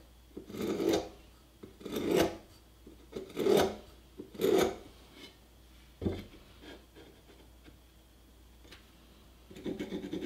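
Mechanical pencil drawing marking lines on a wooden block along a square: four separate scraping strokes in the first five seconds, a light knock about six seconds in, then a quick run of short strokes near the end.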